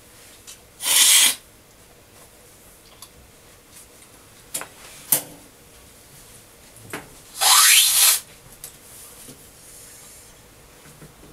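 Two loud slurps of coffee sucked hard off a cupping spoon, each about half a second long, one near the start and one about seven seconds later, with a few faint clicks between.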